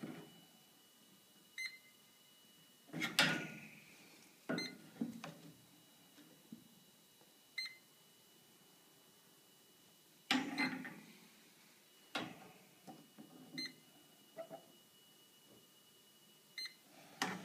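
Testo 316-4 electronic refrigerant leak detector beeping in short separate chirps every few seconds over a faint steady high whine, while it is passed over a fridge's pipework in search of a gas leak. A few louder knocks and rustles of handling come in between.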